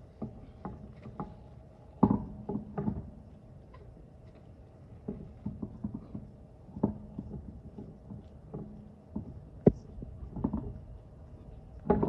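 Irregular knocks and clinks of hand work on a car wheel during a tire change, with a sharp click about ten seconds in.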